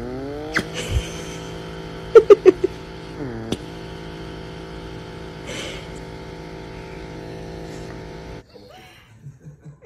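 Small handheld electric motor humming steadily with its pitch dipping and recovering twice, a few sharp loud sounds about two seconds in, then the motor cuts off near the end.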